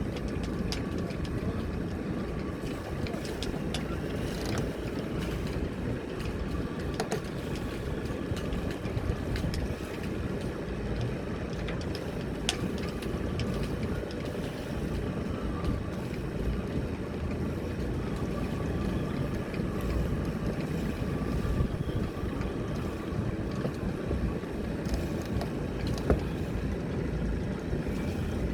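Steady low rumble of a yacht's engine and strong wind buffeting the microphone, with faint steady tones and a few light knocks or clicks.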